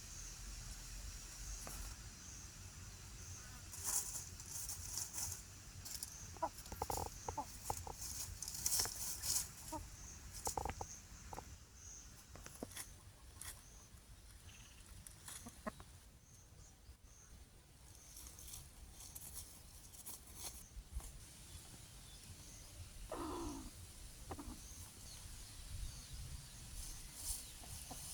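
Free-range chickens clucking in short soft calls amid scattered clicks and rustles, with one longer call falling in pitch about 23 seconds in. A faint high chirp repeats steadily throughout.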